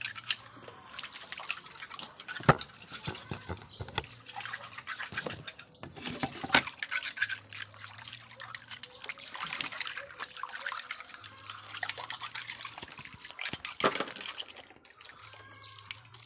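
Mussels being washed by hand in basins of water: water sloshing and trickling, with many sharp clicks as the shells knock against each other and against the basin.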